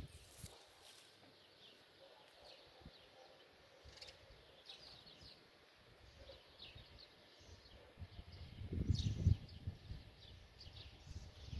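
Small birds chirping, many short high chirps scattered throughout, with a brief low rumbling on the microphone about three quarters of the way in.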